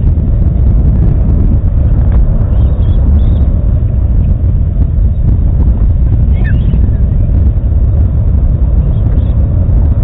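Steady, loud low rumble of wind buffeting an outdoor nest-camera microphone, with a few faint high bird chirps over it, the clearest about six and a half seconds in.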